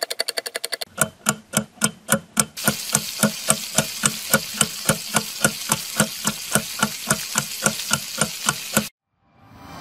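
Background music: a percussive electronic beat of evenly spaced hits, settling to about four a second, that stops suddenly near the end.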